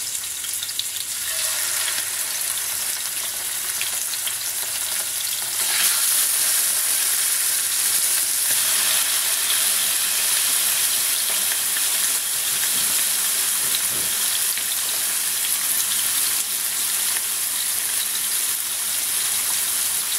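Raw chicken pieces sizzling in hot lard in a frying pan as they start to sear, a steady hissing sizzle that gets louder about six seconds in.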